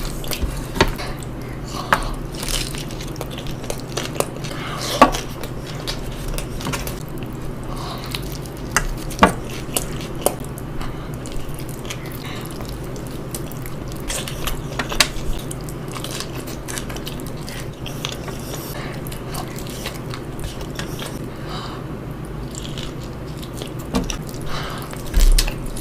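A person eating close to the microphone: big bites and chewing, with sharp clicks and clinks scattered irregularly throughout, over a steady low hum.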